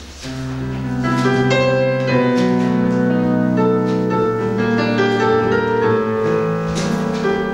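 Piano playing the introduction to a song, slow held chords under a melody line, growing louder over the first second.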